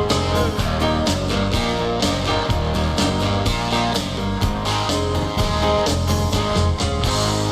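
Instrumental outro of a karaoke backing track: rock music with guitar over a steady drum beat, settling into a held chord near the end.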